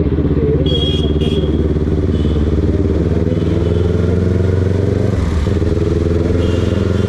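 Sport bike engine running at low revs while riding slowly in traffic, heard from the rider's seat. Its pitch holds fairly even and dips slightly twice.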